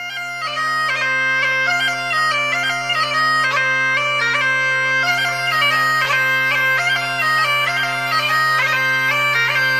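Bagpipes playing a quick melody on the chanter over steady, unchanging drones. The sound starts abruptly at the beginning.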